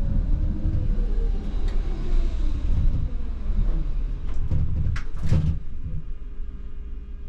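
ČKD Tatra T6A5 tram slowing down, its electric drive whine falling steadily in pitch over the rumble of the wheels. About four and five seconds in come several sharp clunks as it comes to a halt. After that only a quieter steady hum remains.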